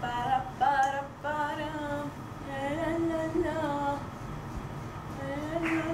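A soft female voice singing a slow melody in four or five short phrases of held, gliding notes, with a slight waver on a long note near the middle.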